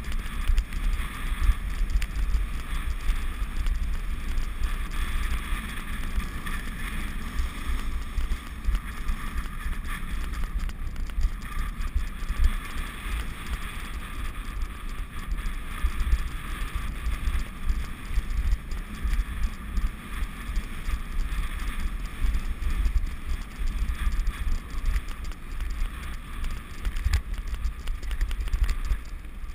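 Wind buffeting the microphone over the steady rolling noise of wheels moving along a grass track.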